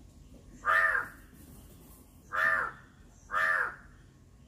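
A crow cawing three times, short harsh caws, the second and third about a second apart.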